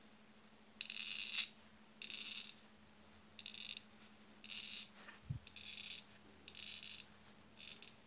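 A wrench working the nut of a steam boiler's sight-glass fitting, each stroke giving a short high squeak or rasp of metal: about seven strokes, roughly a second apart. A single dull knock comes just after five seconds.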